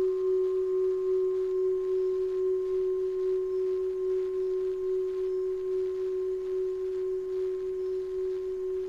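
Singing bowl ringing on after a strike: one steady tone with a fainter higher overtone, slowly fading, with a slight pulsing waver.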